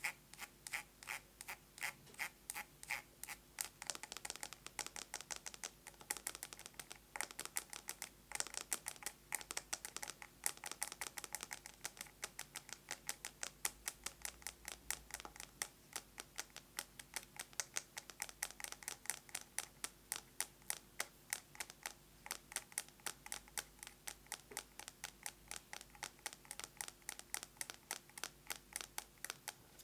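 Fast, continuous fingernail tapping on a plastic box with a metal lid: rapid sharp clicks, several a second, with no pause.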